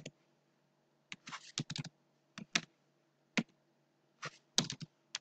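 Computer keyboard keys tapped in short, irregular runs of a few keystrokes each, as numbers are typed into code.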